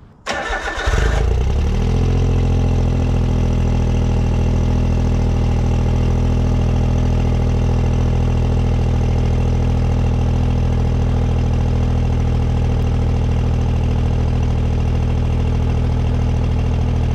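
Autozam AZ-1's F6A turbocharged three-cylinder engine cold-started: the starter cranks briefly, the engine catches about a second in and settles into a steady cold idle. Its exhaust runs through an ORIGINALITY catalyst downpipe and a Suzukisport/Mazdaspeed dual-tip muffler.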